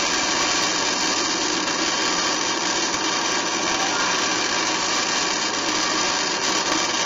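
A power tool running steadily at a constant speed.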